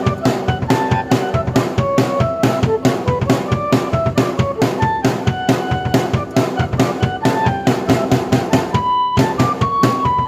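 Drum kit beat of kick, snare and rimshots with a keyboard melody of short notes over it, played together by one performer (melodruming). Near the end the drums drop out for a moment under a held keyboard note.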